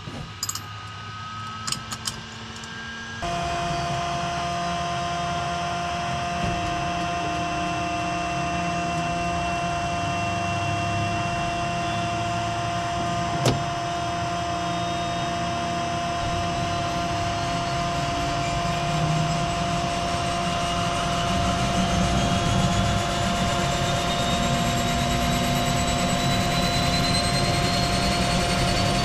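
A few clicks, then about three seconds in the Twin Otter's Pratt & Whitney PT6A turboprop engine noise comes in abruptly: a steady turbine whine over a low rumble. A higher whine rises slowly in pitch and the sound grows a little louder toward the end.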